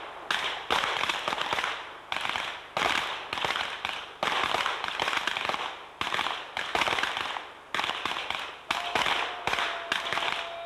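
A line of pistol shooters firing at once: a rapid, irregular volley of overlapping pistol shots, several a second, each with a ringing echo tail. A steady tone sounds over the last couple of seconds as the shooting goes on.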